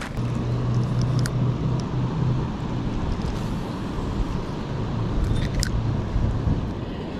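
Steady rushing of river water at a waterfall, with a low hum that comes in twice and a few faint ticks.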